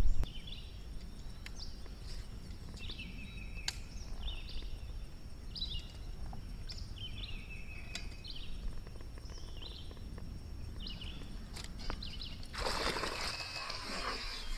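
A bird calling over and over in short chirps, about a dozen spread through the first eleven seconds, over a low steady outdoor rumble. Near the end comes a sudden burst of splashing from a hooked fish thrashing at the water's surface beside the kayak.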